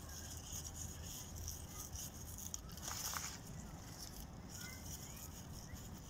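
Faint rustling of spinach leaves being picked by hand from a garden bed, over quiet outdoor background hiss.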